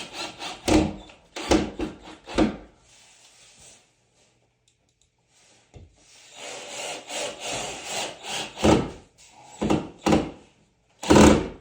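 Hand sawing: rows of quick back-and-forth saw strokes, a few a second, pausing for a few seconds in the middle before starting again. A loud knock comes near the end.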